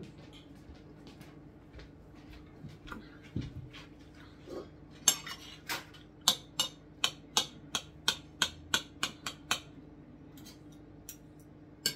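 Knife and fork clinking and scraping against a plate while cutting meat. A quick run of sharp clinks, about four a second, starts about five seconds in and stops about ten seconds in.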